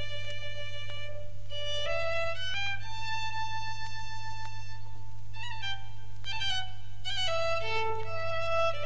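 Background music: a solo violin melody of held notes that change pitch every second or so, over a steady low hum.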